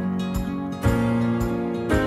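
Acoustic folk instrumental background music led by guitar, with new chords struck a little under a second in and again near the end.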